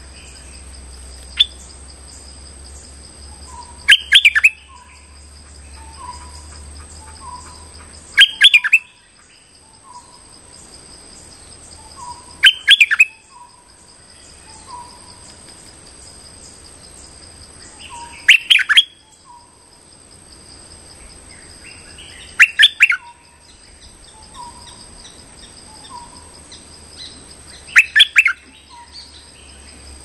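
Bulbul calling: a loud burst of rapid, chattering notes every four to five seconds, six times, with soft short notes between the bursts. This is the lure call used to draw wild bulbuls to the trap cage.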